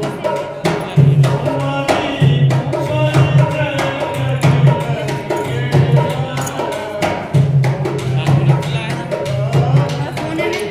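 Rajasthani folk music led by a hand drum beating a steady, driving rhythm, with a pitched melody line over it.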